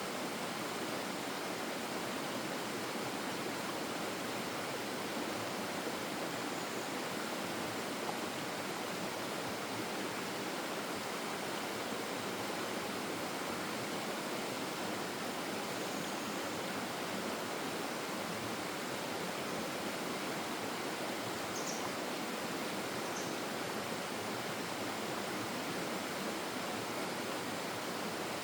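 Forest stream flowing with a steady, even rush of water. A few faint, short high chirps are heard at intervals.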